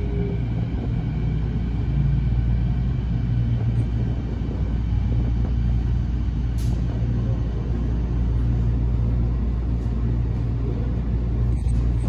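Canada Line SkyTrain car running into an underground station, heard from inside the car: a steady low rumble, with a faint high whine that fades over the first couple of seconds.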